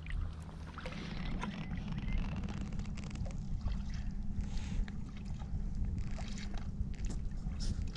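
Sea kayak paddle strokes on calm water: scattered small splashes and drips from the blades, over a steady low rumble.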